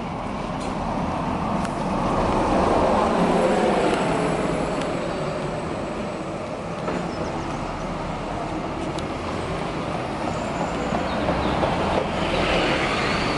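Road traffic on a city street: a steady rush of passing vehicles, swelling as one vehicle goes by a few seconds in.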